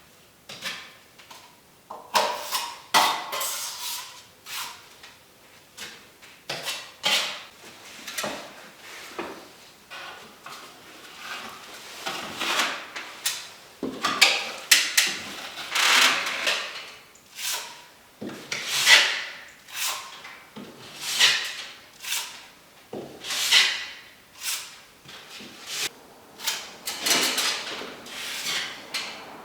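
Plaster being worked with a trowel: repeated scraping strokes, roughly one a second and uneven in force.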